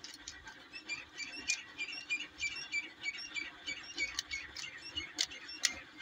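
A plastic 3x3 Rubik's cube being turned by hand, giving a few sharp clicks, over short high chirps that repeat irregularly.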